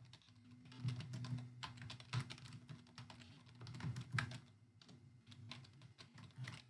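Typing on a computer keyboard: a run of quick, irregular key clicks, with a faint steady low hum underneath.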